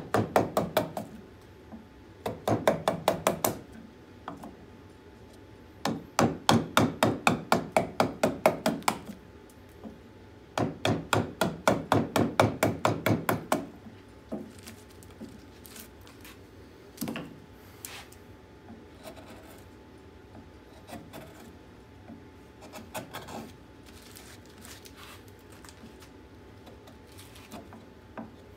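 Gouge driven into green birch by quick, even mallet taps, about four or five a second, in four runs during the first half. Then only scattered quieter knocks and cuts as the gouge is worked by hand.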